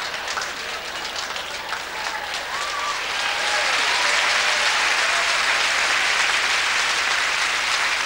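Theatre audience applauding after a comedy punchline; the applause grows louder about three and a half seconds in.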